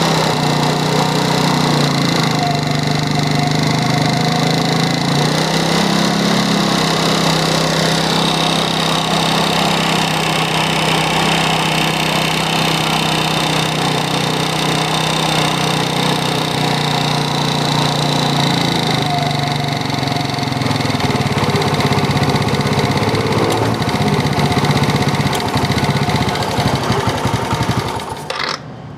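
Yamaha Mio scooter's carbureted single-cylinder four-stroke engine running steadily, then cutting out near the end.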